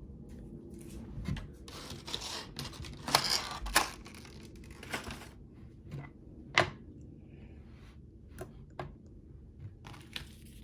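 Packaging being handled: a stretch of rustling, then a run of sharp taps and clicks, the loudest about three seconds in and again near the middle.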